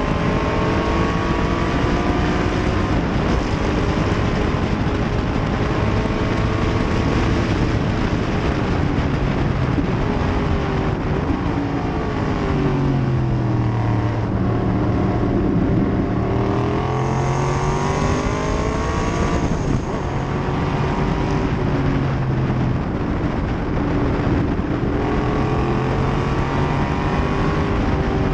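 1968 Corvette race car's V8 running hard, heard onboard with wind rushing over the microphone. The engine note sinks as the car slows into a corner about halfway through, then climbs again as it accelerates out.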